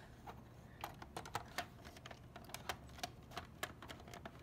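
Faint, irregular light clicks and taps, several a second, from handling the parts of an open VCR's tape-transport mechanism.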